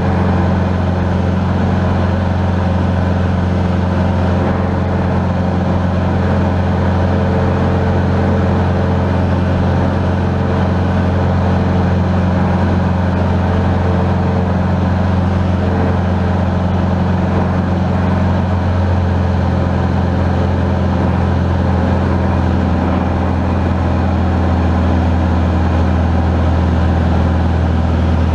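Steady drone of a Van's RV-10's piston engine and propeller, heard inside the cabin in flight; its tone shifts slightly about twenty seconds in.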